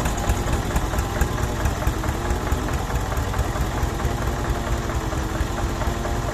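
An engine running steadily at an even idle, with a fast low pulse.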